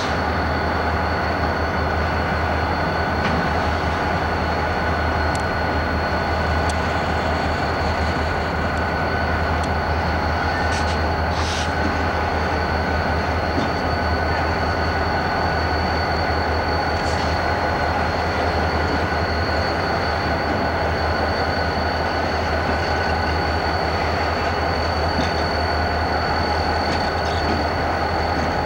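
Diesel locomotive running steadily at close range: a constant low drone with a thin steady whine over it and a few faint clicks.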